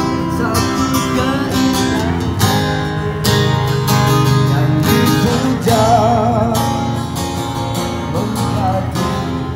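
Acoustic guitar strummed and played by a street musician at a microphone, with a voice singing along.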